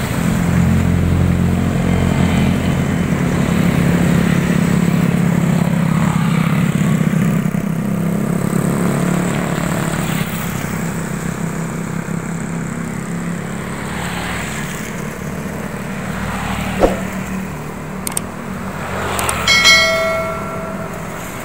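Motorcycles and cars passing on a wet road: a steady engine drone over road noise, louder in the first half. About a second's horn blast sounds near the end.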